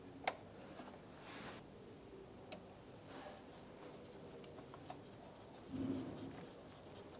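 Faint clicks and taps of a socket on a long extension being fitted onto a bolt and turned, with one sharper click just after the start and a brief rustle about a second in.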